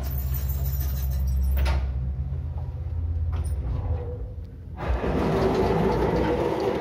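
1984 MLZ passenger lift: the car travels with a steady low hum that stops about four and a half seconds in. After a knock, the car's automatic sliding doors open with a loud mechanical noise.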